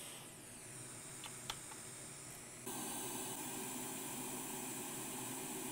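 Steady background hiss with a faint whine falling in pitch in the first second and a single small click about a second and a half in; the hiss steps up suddenly a little under three seconds in and stays louder.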